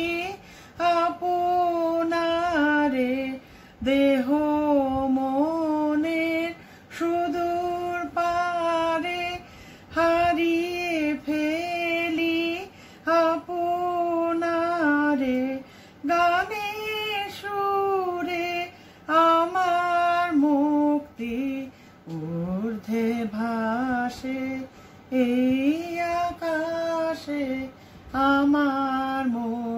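A woman singing solo and unaccompanied, in phrases a few seconds long with held, wavering notes and short breaths between them. The voice drops lower near the end of the third quarter.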